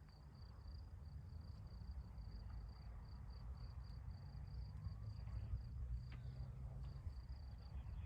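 An insect, likely a cricket, chirping in a steady rhythm of high pulses, about three or four a second, over a low steady rumble.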